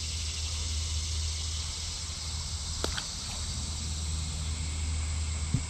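Steady insect chorus over a low steady hum, with one sharp click about three seconds in.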